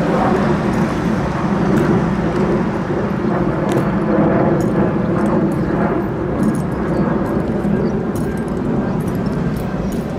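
Road traffic going by, a steady drone of engine and tyre noise that swells over the first couple of seconds, with light clicks from about four seconds in from the marching guards' boots and sabres on the cobblestones.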